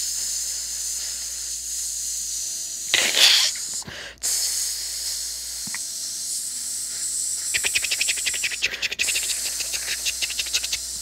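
A steady high-pitched hiss, with a louder rush about three seconds in and a run of fast clicks around eight seconds in.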